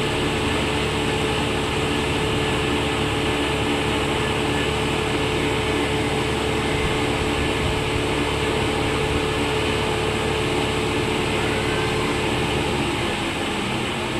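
A steady mechanical hum with a constant mid tone; its low part shifts near the end.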